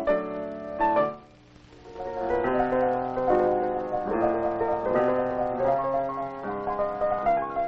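Piano music playing a lively run of notes, breaking off briefly a little after a second in and then resuming.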